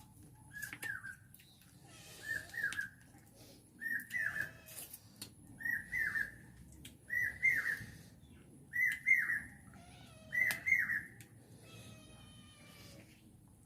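A small animal calling over and over, a short high call about every second and a half that grows louder, then a longer call near the end.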